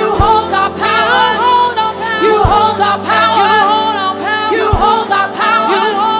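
Live gospel worship music: several singers singing together over keyboards and a band, with a deep beat landing about every two and a half seconds.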